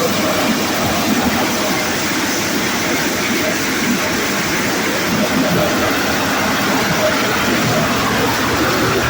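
Corn sheller with a conveyor running: a loud, steady mechanical noise that does not let up.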